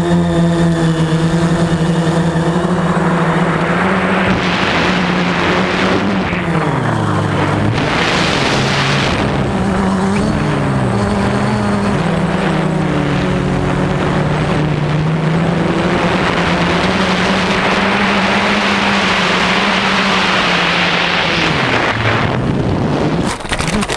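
Veho Muvi Q1 quadcopter drone's motors and propellers whining steadily, the pitch dipping and recovering several times as the throttle changes, with spells of rushing air noise. The sound cuts off suddenly near the end.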